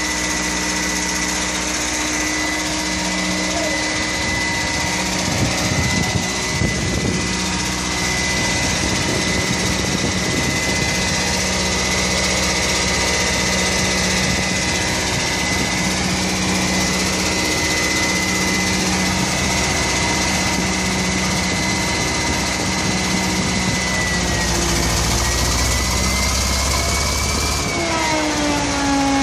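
Trailer-mounted generator set's engine running steadily with a high whine over its low drone. About four seconds before the end the low rumble grows and the whine wavers up, then near the end every tone slides down in pitch as the engine is switched off from the control panel and winds down.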